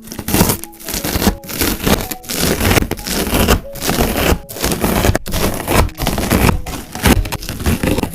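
Slime being squished and worked close to the microphone, making a loud, dense crackling and scraping. It comes in repeated strokes, about one and a half a second, with short breaks between.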